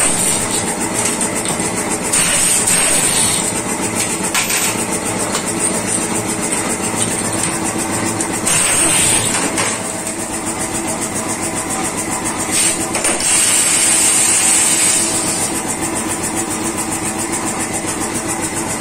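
Pneumatic impact wrench hammering on the bolts of a truck spring brake chamber, in several louder bursts with a hiss of air.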